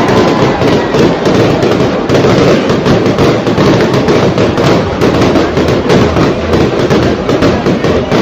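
Fireworks going off in a dense barrage: rapid, overlapping bangs and crackling that do not let up.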